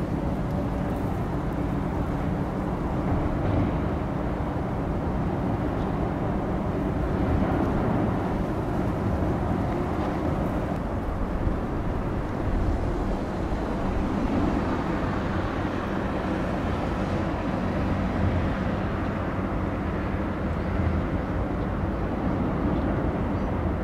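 Steady low engine drone of a passing limestone-carrier cargo ship, its diesel engine throbbing across the water with a broad rumble that holds level throughout.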